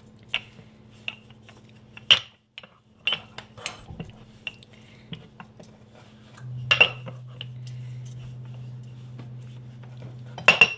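Wooden rolling pin knocking and rolling on a floured wooden board as a small ball of dough is pressed and rolled flat: a string of sharp wooden knocks and clatters. A low steady hum comes in about six and a half seconds in.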